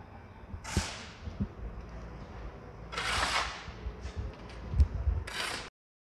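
Three brief swishing hisses and a few low thumps from movement at a handheld phone's microphone. The sound cuts off suddenly near the end.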